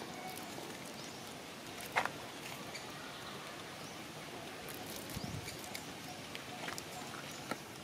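Faint, scattered crinkles and small clicks of a plastic snack packet as a macaque chews and licks at it, with one sharper click about two seconds in and a soft low thump a little after five seconds.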